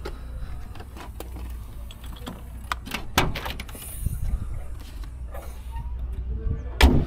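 Side storage locker hatch of a Volvo FH truck cab being handled: sharp clicks and knocks as it is opened about three seconds in, then the hatch slammed shut near the end, the loudest sound. A steady low rumble runs underneath.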